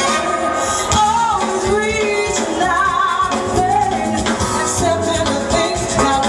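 Live soul band playing, with a female lead singer's wavering vocal line over it.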